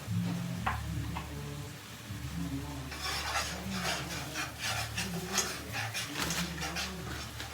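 A utensil stirring and scraping in a pan of melted butter with blended garlic, ginger, bell pepper and onion. About three seconds in, quick strokes begin, about three to four a second.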